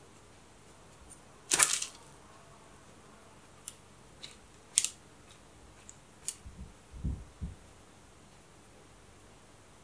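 Hands working pizza dough on a parchment-lined metal baking tray: scattered short crisp taps and crackles of the parchment, the loudest cluster about a second and a half in, then a few soft low thuds around seven seconds as the dough is pressed and folded over.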